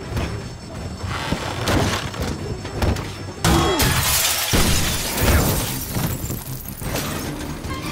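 Glass shattering as a man crashes through a glass pane and falls, with the crash loudest about halfway through, over a film score.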